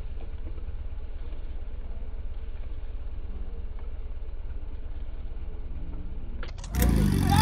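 Portable fire pump's engine idling with a steady low throb while the suction hoses are being coupled, then opened up abruptly near the end and turning much louder as the pump is brought up to working speed.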